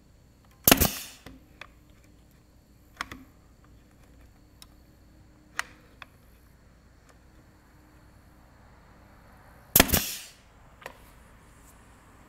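Nail gun firing twice, about nine seconds apart, each a sharp loud shot with a short tail, driving nails through a glued stretcher into a small wooden bow rocker. Fainter clicks and knocks of the tool being handled come in between.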